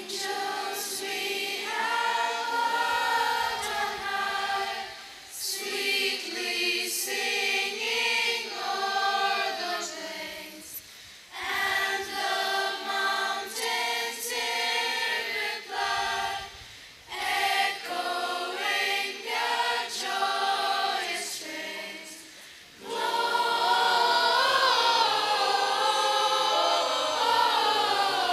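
Children's school choir of boys and girls singing a Christmas carol in phrases, with short breaks between lines; the singing is louder over the last few seconds.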